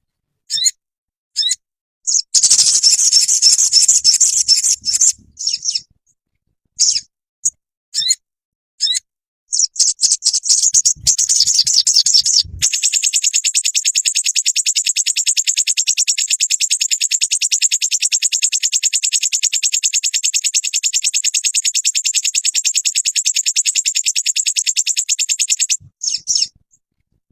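Sogon songbird singing: a run of short, high chirps and call phrases, then one long, very fast trill that begins about halfway through and stops shortly before the end.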